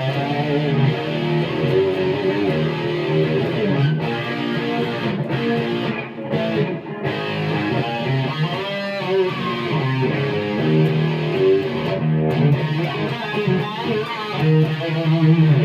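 Electric guitar played through a Fender Mustang III modeling amplifier: continuous chords and sustained notes, with a wavering held note about halfway through.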